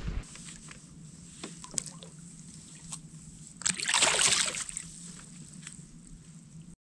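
A released bass hitting the lake surface beside a kayak: one splash about four seconds in, the loudest sound here, with a few small knocks and drips before it.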